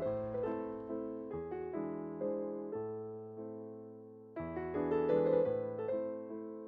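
Gentle piano music, single notes and chords struck one after another and dying away.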